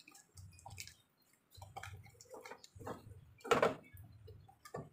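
Scattered short clicks and knocks, the loudest a knock about three and a half seconds in, over a faint on-and-off low hum.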